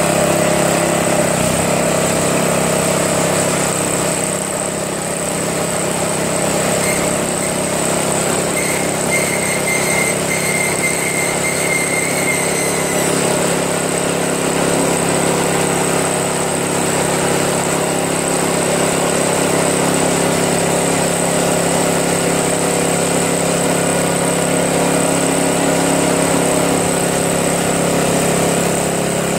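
Tecumseh single-cylinder engine of a Craftsman 522 two-stage snowblower running steadily, now that its carburetor has been cleaned. A faint high whine joins in from about seven to thirteen seconds in.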